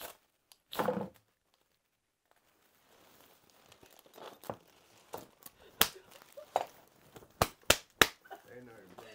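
Crinkling and rustling of plastic packaging being handled, with a run of sharp clicks and snaps that grows loudest about six to eight seconds in.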